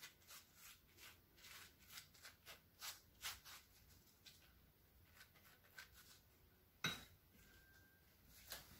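Faint swishing strokes of a silicone pastry brush being brushed over rolled beancurd-skin rolls on a metal baking pan, two or three strokes a second, followed by two sharp clicks later on.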